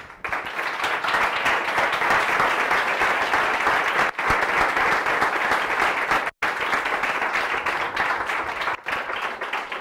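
Audience applauding steadily, a dense crackle of many hands clapping, breaking off for an instant about six seconds in.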